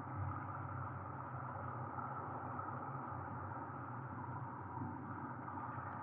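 Steady low rushing noise with no distinct events, an even background hiss and rumble.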